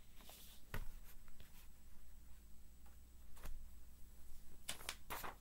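Sheets of paper rustling as they are handled and swapped, with a few soft knocks; the loudest rustling comes near the end.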